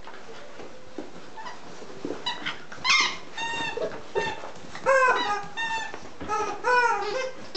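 English Cocker Spaniel puppies yipping and whining in play: a run of short, high-pitched cries starting about two seconds in, loudest around the middle.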